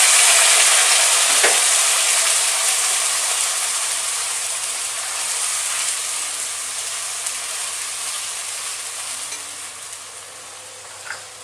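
Onion paste sizzling in hot oil and ghee in a kadai right after it has gone in. The sizzle is loud at first and dies down steadily, with a light tap about a second and a half in.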